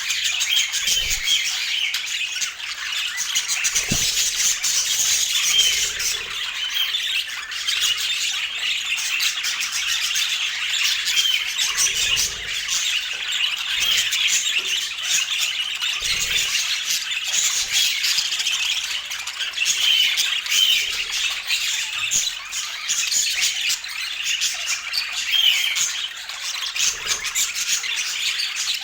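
Pet budgerigars chattering and warbling without pause: a dense, steady stream of short, high chirps and squawks.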